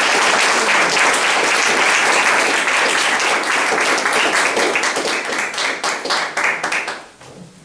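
Audience applauding with many hands clapping, dying away about seven seconds in.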